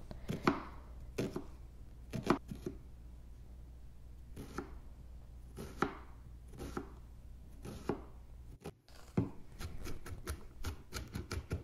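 Chef's knife chopping onion and garlic on a bamboo cutting board: single knocks of the blade on the board, spaced irregularly and coming quicker near the end.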